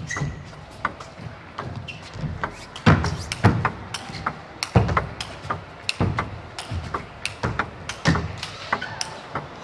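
Table tennis rally: the ball clicking off the rackets and the table in a quick, irregular series, mixed with heavier thuds from the players' footwork on the court floor.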